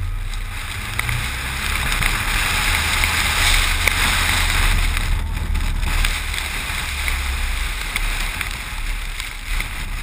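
Jeep Wrangler driving through snow: a steady rushing hiss of wind and snow spray on the outside-mounted camera over a low engine and tyre rumble, with a few faint ticks.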